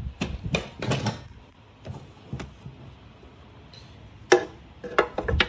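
Knocks and clatter of a metal ECU mounting bracket and the MegaSquirt ECU case being handled and set in place on a wooden workbench: a run of knocks at the start, a few single clicks, then a sharp click and another run of knocks near the end.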